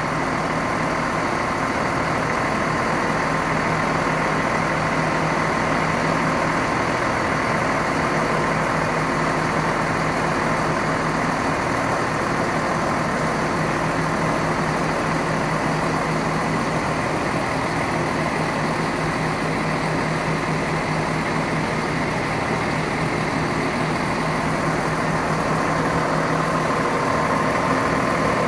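Underfloor MTU six-cylinder diesel engine of a ScotRail Class 170 Turbostar unit running steadily at idle while the train stands, with a steady whine above the engine note.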